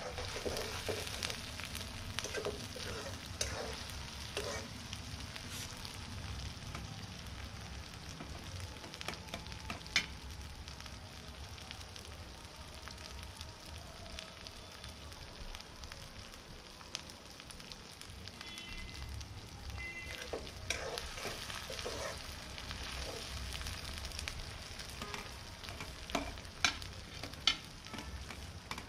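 Chopped onions sizzling in oil in a wok over a wood fire, with a metal ladle scraping and clinking against the pan as they are stirred: a few strokes at the start, then more past the middle and near the end.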